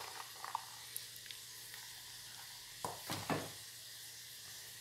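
Hands stirring diced candied fruit and raisins coated in flour in a plastic tub: faint rustling with light clicks, and a couple of short, louder knocks about three seconds in.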